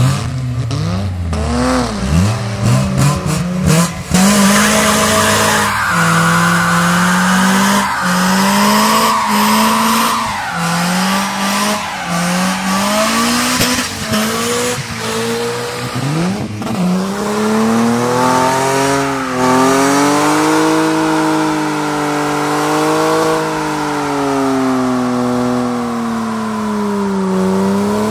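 BMW E36 doing a burnout: the engine revs high in repeated surges, climbing and dropping back, while the rear tyres spin and squeal. About two-thirds of the way in, a BMW E30 burnout takes over, its engine held at high revs, rising and falling slowly, with the tyres screeching.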